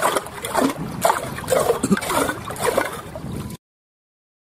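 Small freshwater mussels being stirred by hand in water in a steel bowl: wet shells clattering and squeaking against each other and the bowl, with sloshing water. It cuts off abruptly about three and a half seconds in.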